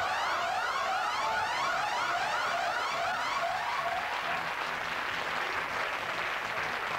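A warbling, siren-like electronic sound effect made of quickly repeated rising sweeps. About three seconds in it gives way to studio audience applause.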